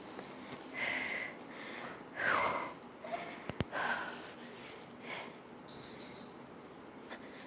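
A woman breathing out hard every second or so while working out with a resistance band. There is a single sharp click a little past three seconds in, and a short, high, steady beep about six seconds in.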